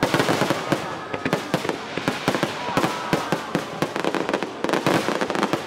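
Fireworks display: a rapid, dense string of bangs and crackling shell bursts, overlapping with no break.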